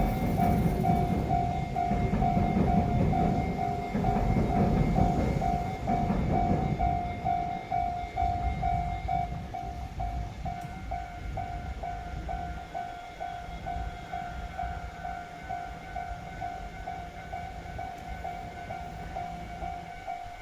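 Level-crossing warning bell ringing steadily, about two strikes a second, while a train rumbles past over the first six seconds and then fades. From about ten seconds in, a second, higher-pitched crossing bell rings alongside it.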